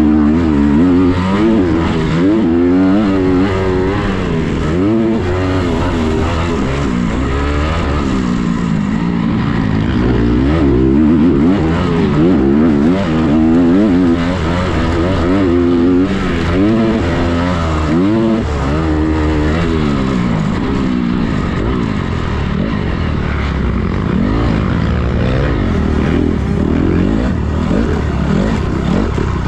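Motocross dirt bike engine under race load, its pitch rising and falling over and over as the rider works the throttle around the track.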